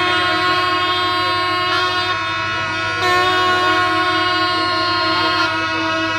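A group of kombu, Kerala's long C-shaped brass horns, blown together in long held notes, with fresh blasts about a second and a half and three seconds in.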